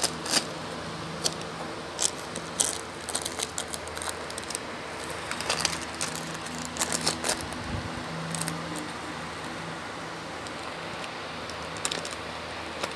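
A Shih Tzu chewing and nosing at a plastic treat wrapper: irregular crinkles and sharp clicks, frequent for the first two-thirds and then only a few, over a steady low hum.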